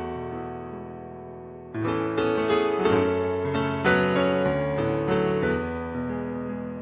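Piano or electric piano playing slow, gentle music: a held chord dies away, then a new phrase of single struck notes over sustained chords begins a little under two seconds in.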